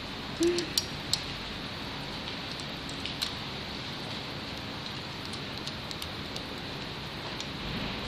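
Light metallic clicks and taps of small metal parts and a hex screwdriver as an RC transmitter tray is put together, a few within the first second or so and one about three seconds in, over a steady hiss.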